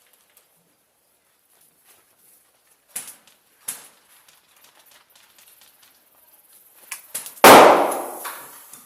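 A few sharp snaps, then a very loud bang about seven and a half seconds in that dies away over about a second.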